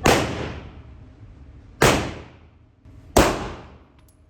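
Three gunshots at a shooting range, each a sharp crack trailing off in a short echo: the first right at the start, the second nearly two seconds later, the third about a second and a third after that.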